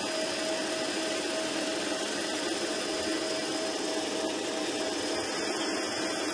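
Electric stand mixer running at a steady speed, its whisk beating egg yolks and sugar in a stainless-steel bowl: an even motor whine.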